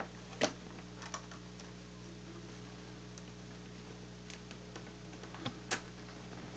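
A few scattered sharp clicks of nylon zip ties being handled and pulled around coax cable on a plastic antenna centre plate, over a steady low hum.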